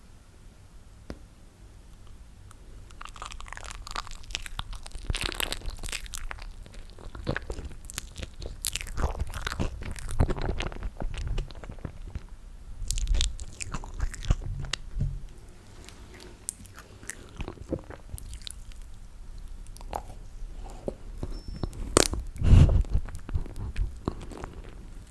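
Close-miked eating of toasted marshmallow: sticky chewing and biting with many sharp mouth clicks, beginning a few seconds in and loudest near the end.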